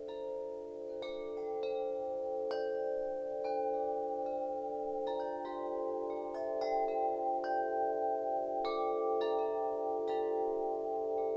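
Wind chimes struck irregularly, about once a second, their tones ringing on and overlapping into a sustained, shimmering chord.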